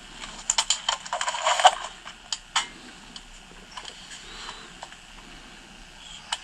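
Handling noise of a camcorder being moved, heard through the camcorder's small playback speaker. A quick run of sharp clicks and a scraping rustle comes in the first two seconds, then a few scattered single clicks over a faint steady hiss.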